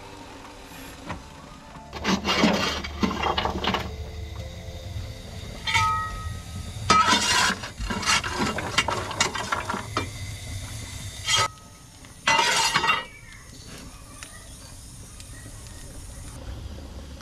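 Cab sounds of a small 15-inch-gauge steam locomotive standing with its fire lit: a steady low rumble, broken by five or six short noisy bursts of up to about a second each as the driver works the fire and the footplate controls.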